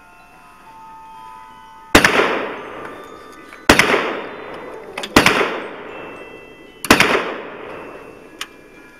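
Four rifle shots fired at a steady pace, about one and a half to two seconds apart, each followed by an echo that dies away over a second or so.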